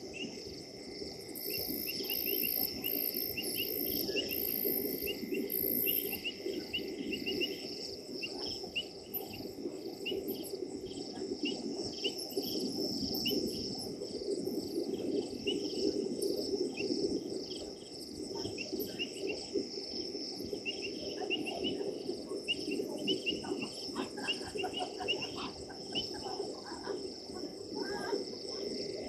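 Night chorus of crickets and other insects: a steady high trill with rapid, repeated short chirps, over a low steady background rush.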